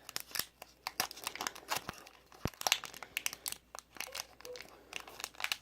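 Foil wrapper of a Pokémon booster pack crinkling as it is handled, a dense run of irregular sharp crackles, loudest in the middle.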